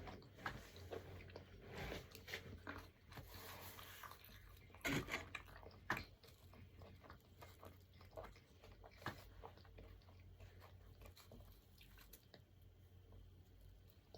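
Faint chewing and mouth sounds of people eating sugar-coated marshmallow Peeps, with scattered small clicks.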